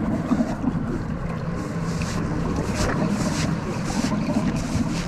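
Wind buffeting the microphone over the wash of sea water around a small boat at sea, a steady rough rumble that swells briefly into louder hissing gusts a few times.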